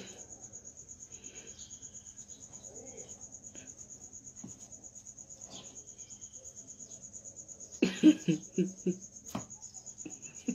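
An insect chirping in a fast, even, steady pulse. About eight seconds in, a person's voice breaks in with a few short bursts.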